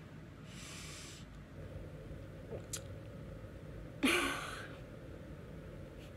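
A young woman breathing out audibly in a sigh, then, about four seconds in, a louder short breathy vocal sound with a brief voiced note.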